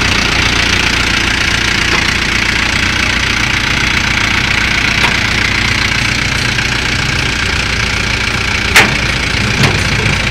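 A vehicle engine idling steadily, with two sharp clicks near the end, the first the loudest.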